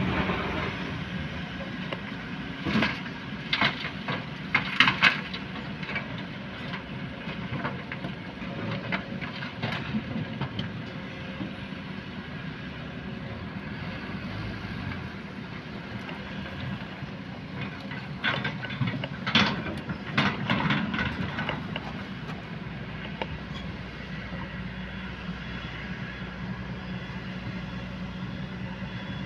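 Kobelco excavator's diesel engine running steadily while it loads a dump truck, with two bursts of clattering knocks, about three seconds in and again near the middle, as the bucket's load of soil and rock drops into the steel truck bed.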